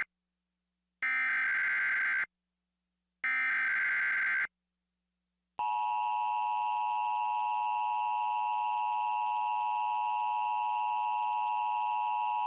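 Emergency Alert System (SAME) header: the end of one short digital data burst, then two more identical bursts about a second apart. About five and a half seconds in, the steady two-tone EAS attention signal begins. It announces an incoming alert, here a National Weather Service tornado watch.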